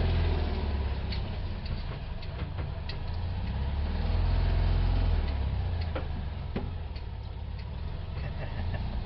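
Vehicle engine running at low revs with a deep, uneven rumble that swells and eases, along with a few scattered light clicks and knocks.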